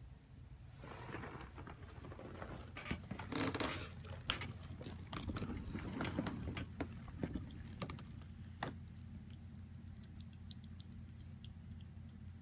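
Kittens scuffling and wrestling on soft bedding: irregular rustling, scratching and light knocks, busiest in the first half, with a sharp click about two-thirds of the way through, over a steady low hum.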